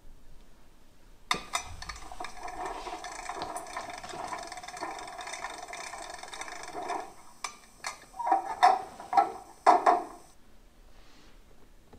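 Sound decoder of a Gauge 1 V 160 diesel locomotive model playing its extended preparation sequence through the model's speaker: a click about a second in, then steady mechanical rattling and clicking, with several short loud bursts near the end.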